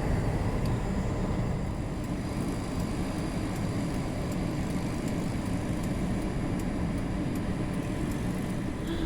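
Steady car engine and cabin rumble heard from inside a car in deep snow.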